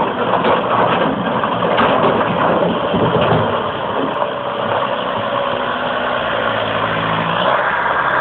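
Komatsu hydraulic excavator's diesel engine running as the machine works its bucket in a rocky riverbed, with a few short knocks in the first few seconds. From about halfway the engine's hum becomes steadier.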